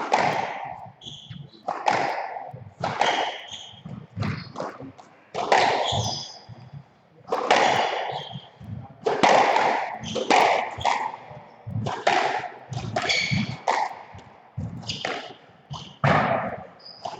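A squash rally: the ball smacked by rackets and off the court walls, sharp cracks about once a second, each echoing briefly in the enclosed court.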